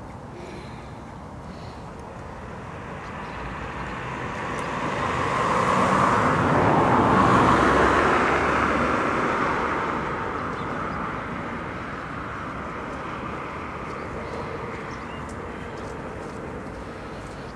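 A vehicle passing by: a steady rushing noise that swells over a few seconds, peaks near the middle, then slowly fades away.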